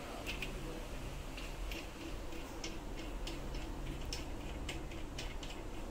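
Brass tap spindle (headgear) being screwed by hand into a wall tap's body: light metal clicks at irregular spacing, several a second.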